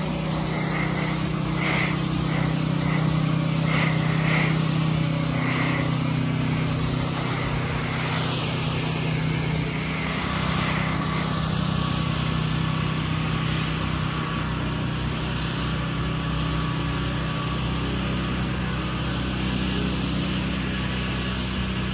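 Pressure washer engine running steadily, with the hiss of the water spray over it.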